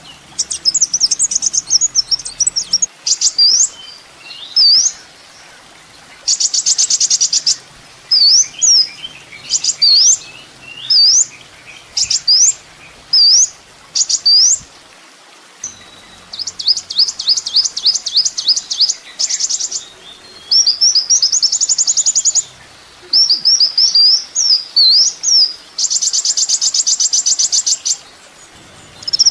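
Kolibri ninja sunbird singing: sharp, high whistled notes that sweep up and down, about one a second, broken several times by fast, high, buzzing trills lasting one to three seconds.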